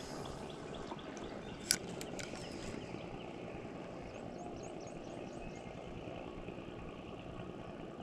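Steady low rush of open-air ambience on the water, with a single sharp click about two seconds in and a brief run of faint high chirps a little after.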